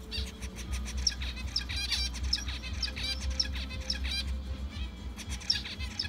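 Zebra finches calling: many short, high chirps in quick succession, with a brief lull about four and a half seconds in before they start again.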